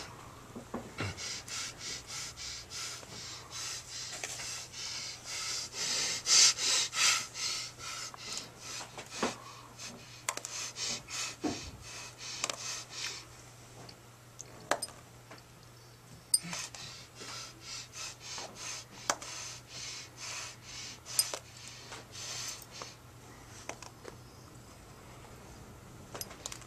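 A man breathing hard and fast in quick, rhythmic huffs, with a few sharp taps and a steady low hum underneath.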